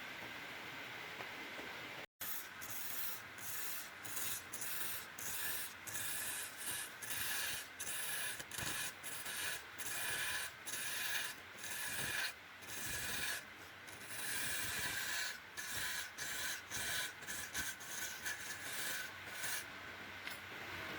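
Wood being worked by hand with an abrasive, sanding or filing in rhythmic back-and-forth strokes, about two a second. The sound cuts out for an instant about two seconds in, and the strokes follow.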